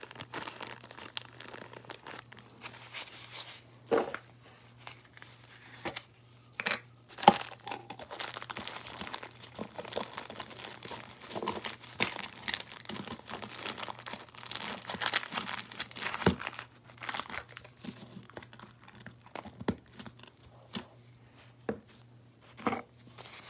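Irregular crinkling of a plastic zip-top bag and crackling of crunchy slime squeezed by hands in nitrile gloves, with several sharp taps and clicks on plastic scattered through, the loudest about seven seconds in.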